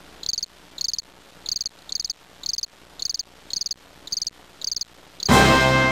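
Cricket chirping, short pulsed chirps about twice a second. Loud music cuts in near the end.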